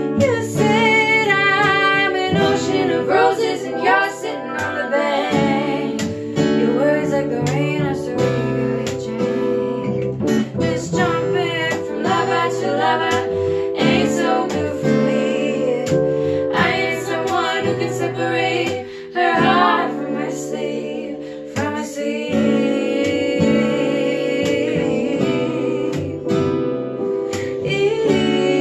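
Folk soul song played live: strummed acoustic guitar and cello under several women's voices singing together.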